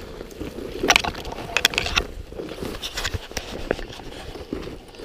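Snowshoe footsteps crunching and compacting deep, wet snow in an irregular walking rhythm, with a low rumble underneath.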